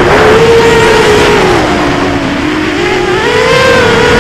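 Eachine Tyro 129 FPV quadcopter's brushless motors and propellers whining in flight, the pitch sinking about two seconds in and climbing back up as motor speed drops and rises again, over a rough rushing noise.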